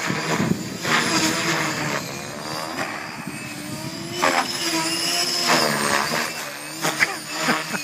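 Gaui X5 electric RC helicopter in flight: the Scorpion brushless motor and main rotor turning at about 2600 rpm head speed make a whine that bends up and down in pitch. Louder blade swishes come about a second in, near halfway and near the end.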